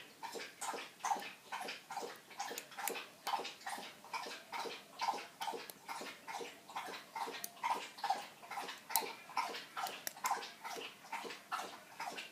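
Dog lapping water in a long, steady drink, a run of wet laps at about three a second.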